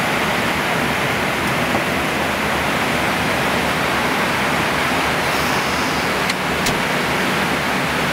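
Steady rushing cockpit noise of a Boeing 777-300ER in cruise flight, mostly airflow over the nose and windscreen, with two light clicks about six and a half seconds in.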